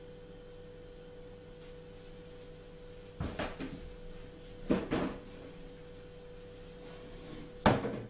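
A few short knocks and clunks over a steady hum, the loudest near the end.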